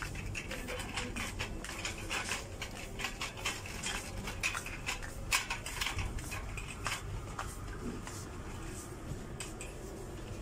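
Metal shopping trolley rattling and clattering as it is pushed along a supermarket aisle, an irregular run of sharp clicks that thins out near the end, over a low steady hum.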